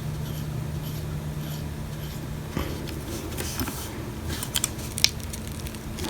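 Small prying tool scraping and clicking against an iPhone SE's housing while working the adhesive-stuck battery loose, with a few sharp clicks near the end, over a steady low hum.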